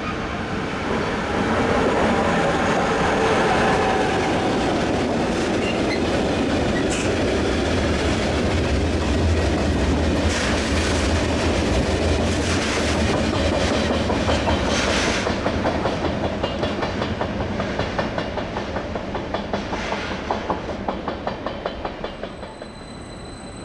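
A freight train of tank wagons, hauled by an SBB Cargo Re 484 electric locomotive, passes at close range. The wheels clatter in an even rhythm over the rail joints, and near the end the sound drops away as the last wagon goes by.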